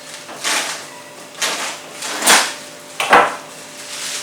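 Serrated blade of a multi-tool knife sawing through a plastic-wrapped package: four cutting strokes about a second apart, the last two the loudest.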